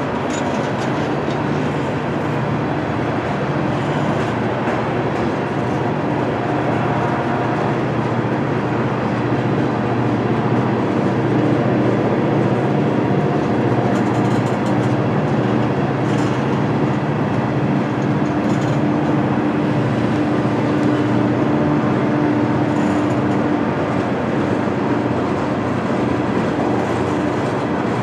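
A freight train climbing a grade behind EMD SD40-family diesel locomotives: a steady, loud drone of the engines working under load, mixed with the rolling noise of the train.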